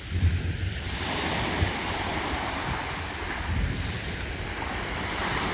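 Small waves washing up onto a sandy beach and drawing back, with wind rumbling on the microphone from about the start.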